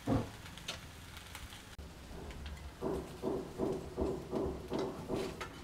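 Hammering from renovation work in a flat upstairs: a quick run of about nine knocks, roughly three a second, starting a few seconds in, after a single thump at the very beginning.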